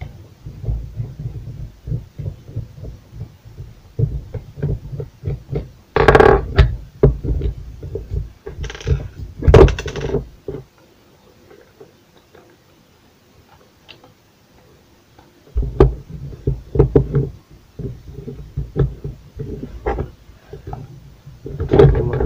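Handling noise from taking apart a Bort angle grinder by hand: irregular clicks and knocks of its plastic housing, screws and a screwdriver being picked up and set down, with a few louder clatters. It goes quiet for a few seconds about halfway through, then the knocking starts again.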